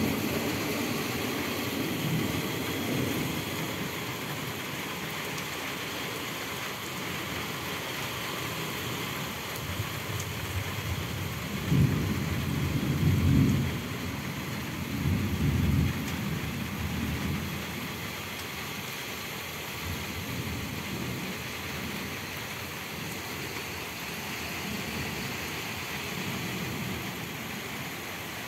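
Thunderstorm: steady rain hissing throughout while thunder rumbles. The two loudest rolls of thunder come about halfway through, a couple of seconds apart.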